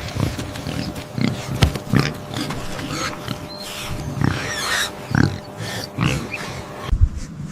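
A farm animal making a series of short, irregular calls and snuffling noises, several to the second, some higher and noisier than others.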